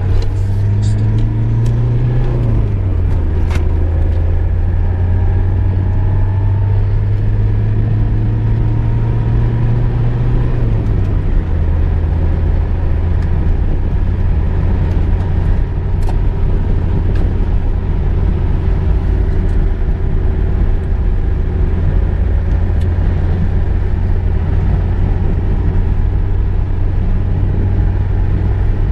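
Car being driven: a steady low engine drone over road noise. The engine note drops in pitch twice, about two seconds in and about eleven seconds in, and there are a few faint clicks near the start.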